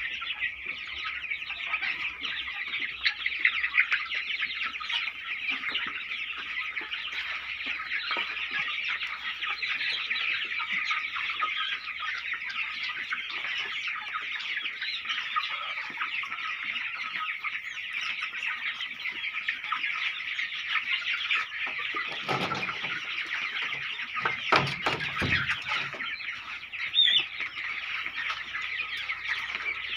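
A large flock of seven-week-old chickens calling and clucking in a dense, continuous chorus. A few dull low thumps come about two-thirds of the way through.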